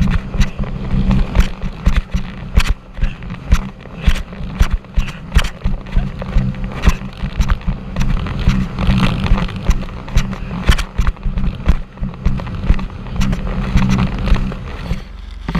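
Sea-Doo personal watercraft running at speed, a steady engine drone under frequent irregular sharp slaps as the hull hits the chop and throws spray.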